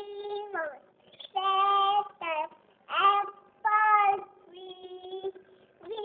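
A young girl singing a nursery rhyme unaccompanied, in short held notes, several phrases ending in a falling glide.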